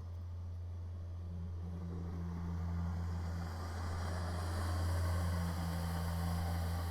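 Kubota BX compact tractor's diesel engine running at a distance, heard through a security camera's microphone over a steady low electrical hum. The machine noise swells about four to five seconds in.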